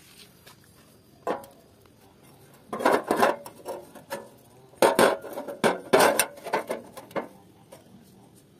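Steel clattering and knocking on a steel work table as a thin-walled steel pipe and a flat steel bar are handled and laid against each other. There is one sharp knock about a second in, then three bursts of ringing metal clatter around the middle.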